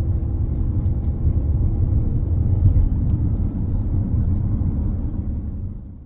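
Steady low rumble of a moving car heard from inside the cabin, road and engine noise, fading out near the end.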